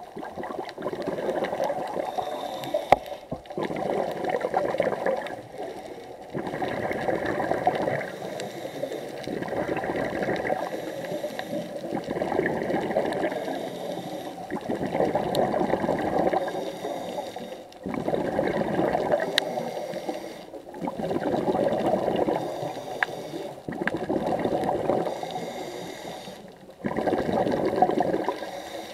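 Underwater recording of a scuba diver's breathing: bubbles gurgling from the regulator, rising and falling in a regular rhythm about every three seconds.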